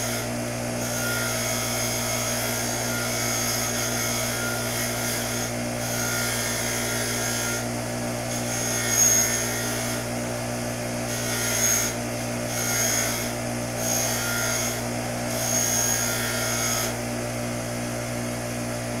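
Bench grinder motor running steadily while a metal part is pressed against its spinning wheel in short passes, giving a scratchy scrubbing sound every second or two.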